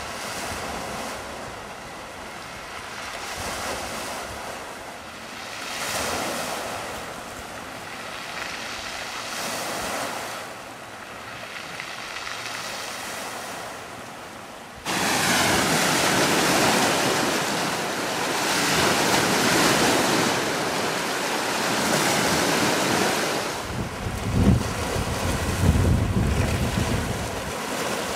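Sea waves and wind, the wash swelling and fading every few seconds, with wind buffeting the microphone. About halfway through the sound jumps suddenly louder, and low rumbles of wind on the microphone come near the end.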